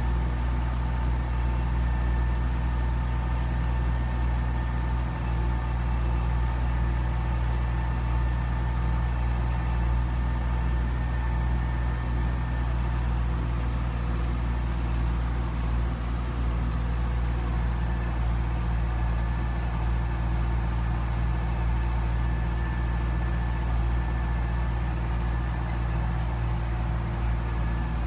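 Belarus MTZ 820 tractor's four-cylinder diesel engine running steadily under load while pulling a disc plough, heard from inside the cab. The engine speed stays even throughout, with a thin steady whine above the engine note.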